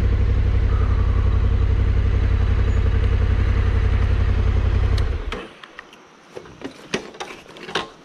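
Adventure motorcycle engine running steadily, then switched off about five seconds in. After it stops come a handful of sharp clicks and knocks.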